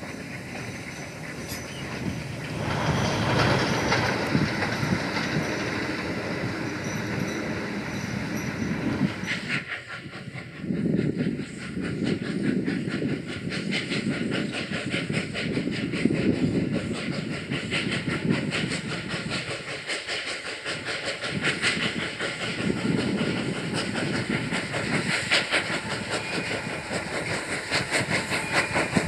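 Industrial steam saddle-tank locomotive going by with a train of goods wagons and a brake van: exhaust chuffs and wagon wheels clattering over rail joints. About a third of the way in it cuts to a second saddle tank working a goods train, with rapid regular exhaust beats and hissing steam.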